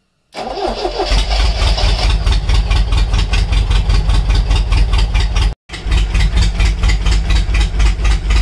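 MGB's 1.8-litre B-series four-cylinder engine started on the choke: it cranks and catches about a third of a second in, rises in pitch, then runs at a fast, even pulsing idle. The sound drops out for an instant a little past the middle, then the engine carries on running.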